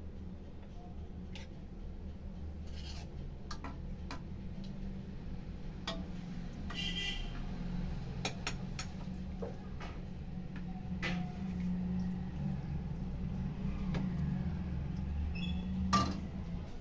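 Metal serving spoon clinking and scraping against a cooking pan and a small glass bowl as fish curry is ladled out, scattered knocks with a sharper clink near the end, over a steady low hum.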